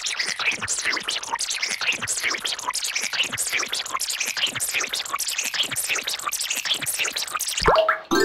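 Tracing app's bubble sound effect: a rapid, unbroken stream of small bubbly pops and fizzes while a finger traces a cursive letter on the touchscreen. Near the end a short thump comes, then a rising chime begins as the letter is completed.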